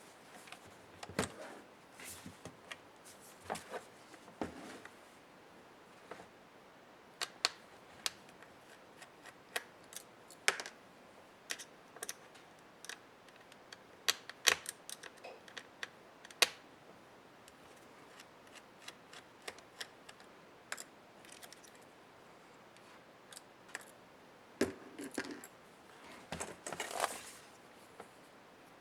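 Irregular clicks and taps of hands and small tools working on an HP ProBook 430 G6 laptop during disassembly, as plastic and metal parts are handled and set down. There is a denser stretch of scraping and clatter near the end.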